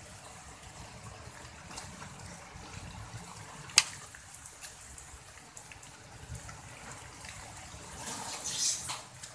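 Water trickling and dripping, with one sharp click about four seconds in and a brief hissing rustle near the end.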